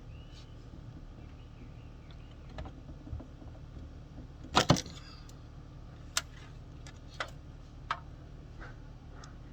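Metal clanks and clicks from hand work on a minivan sliding-door roller assembly: two loud knocks close together about halfway through, then a few sharp single clicks about a second apart.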